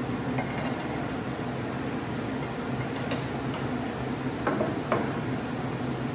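Steady hum of running shop machinery, with a few light metallic clinks: one about three seconds in and two more near five seconds. The clinks come from metal parts and tools being handled at the turret lathe's chuck.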